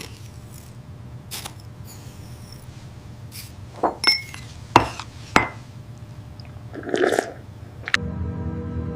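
Light glass clinks and taps, several sharp ones, some with a brief ringing tone, over a low steady hum, with a short blurred sound about seven seconds in. Background music starts about a second before the end.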